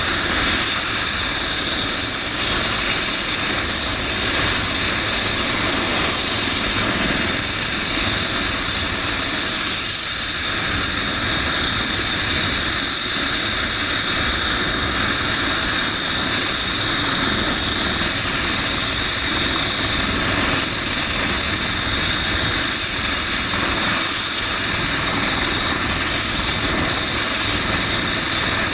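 Eurocopter EC135 twin-turbine helicopter running steadily at a constant level, a loud high turbine whine over the rotor noise.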